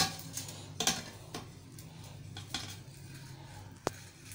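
A metal plate clinking and knocking against a serving plate as a cooked omelette is slid from one onto the other: a handful of sharp clinks, the loudest right at the start. A low steady hum runs underneath.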